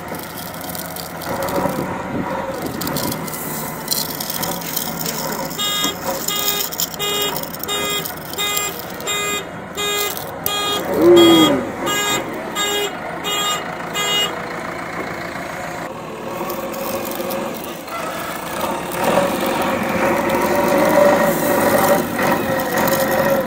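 Backhoe loader engine sound running steadily, with a reversing alarm beeping about twice a second from about six to fourteen seconds in.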